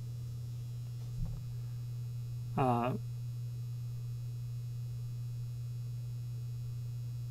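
Steady low electrical mains hum. A short vocal sound comes about two and a half seconds in, and a light knock about a second in.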